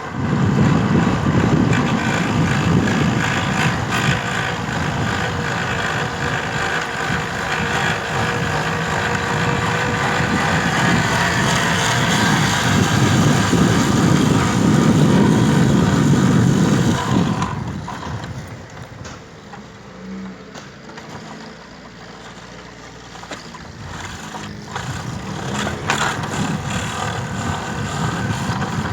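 Motorcycle engine running, loud and steady for about the first seventeen seconds, then dropping off sharply and picking up again near the end.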